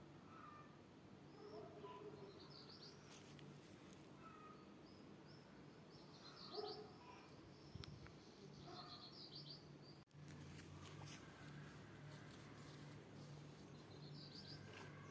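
Faint birdsong: short quick chirps in runs of a few notes, coming several times, over a low steady hum.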